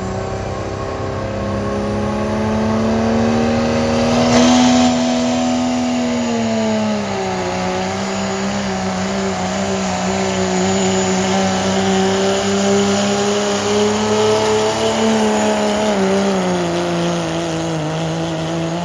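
Turbocharged diesel engine of a Pro Street class pickup truck running hard at high revs, pulling a sled. The pitch climbs over the first few seconds, dips twice as the truck bogs under the load, and starts rising sharply at the very end.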